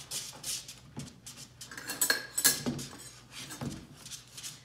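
Metal spoon scraping and clinking against a stainless steel skillet while stirring a butter pan sauce, with a few louder ringing clinks about two seconds in.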